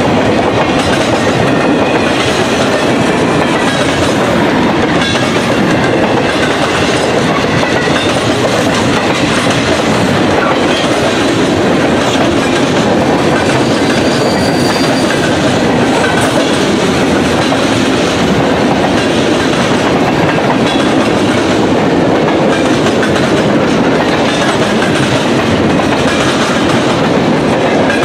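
Railroad cars rolling past at a steady speed, steel wheels on the rails making a loud, even rush.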